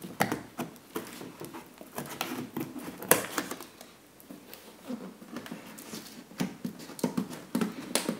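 Scissors snipping through the cardboard tabs of a retail box, a run of irregular crisp snips and clicks with cardboard rustling and creaking between them.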